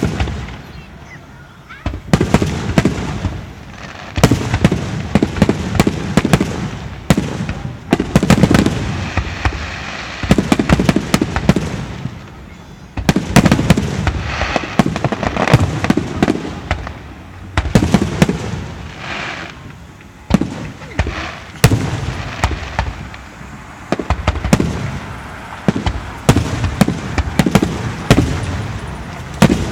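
Aerial fireworks display: shells bursting one after another in quick succession, deep booms mixed with sharp cracks and crackling, without a break.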